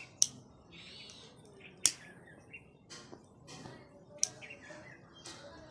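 Disposable lighter being struck again and again: a few sharp clicks a second or two apart, three of them loud.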